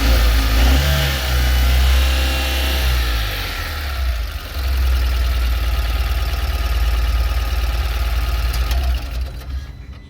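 Tata Ace Gold mini-truck's small petrol engine, the one used in the Nano, running and revving up and down on a test run after throttle-body cleaning and cleared fault codes, to check whether its lost pickup is cured. The sound drops away sharply near the end.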